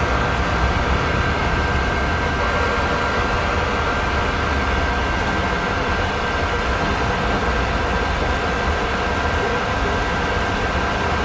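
Automatic ramen cooking machine running under a bowl of boiling ramen: a steady hum with a constant high whine and a low rumble.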